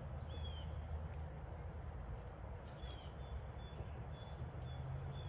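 Faint outdoor ambience: a small bird giving short high chirps, several in a row in the second half, over a steady low rumble.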